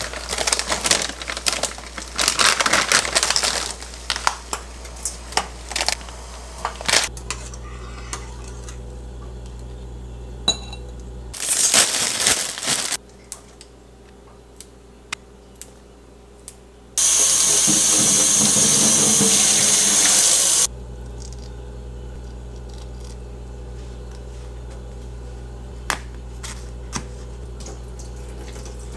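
Plastic food packaging crinkling and rustling for the first several seconds, then a kitchen tap running into a stainless steel sink for about four seconds before it is shut off suddenly, with scattered light clicks and knocks.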